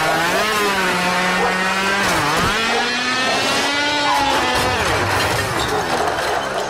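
Runaway electric lawnmower's motor revving hard, running at a steady high pitch with two sharp dips and recoveries, about half a second and two and a half seconds in, so that it sounds like a racing engine.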